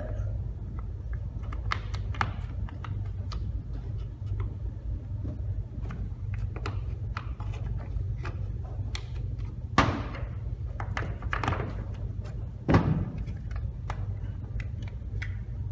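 Small screwdriver backing screws out of the plastic housing of a pressure washer trigger gun: scattered small clicks and taps of metal tool on screw and plastic, with two louder knocks about ten and thirteen seconds in, over a steady low hum.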